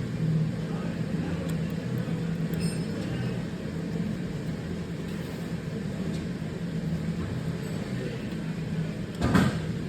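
Steady low mechanical hum in the background, like a running vehicle engine or road traffic, with a short louder noise near the end.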